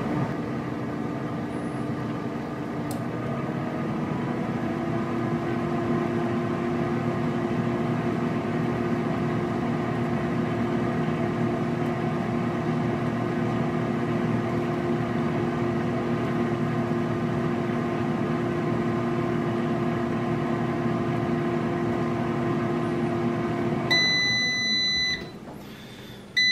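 Power AirFryer XL's fan and heater running with a steady hum, which cuts off about 24 seconds in as the cooking timer runs out. A high, steady beep of about a second then signals that the cycle is done.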